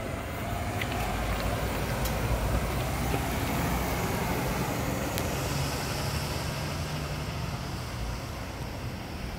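Fire department ladder truck's diesel engine pulling out and accelerating away, its engine note rising in the middle, then easing off as it moves down the street.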